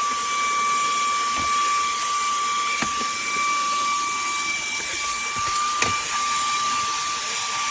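Wkzay handheld cordless vacuum with a brushless motor running steadily: a high whine over an airy suction hiss. A few sharp ticks come through as debris is sucked up.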